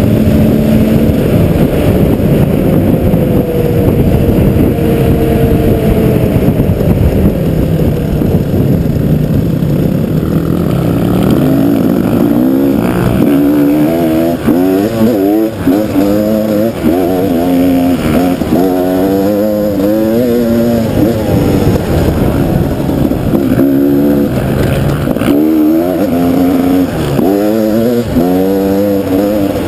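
KTM dual-sport motorcycle engine heard from on board, first running steadily at speed under a heavy rush of wind noise. From about halfway through, the pitch rises and falls over and over with constant throttle changes as the bike works along an off-road trail.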